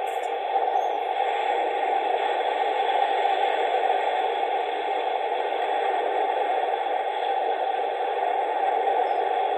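Skip Hop elephant nightlight soother playing its "Wind" sleep sound through its small built-in speaker: a steady whooshing noise that swells and eases only slightly.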